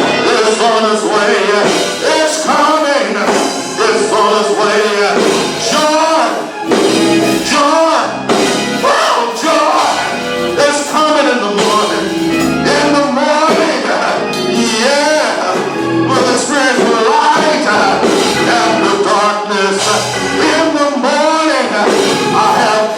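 Gospel song sung by a church singing group with instrumental accompaniment.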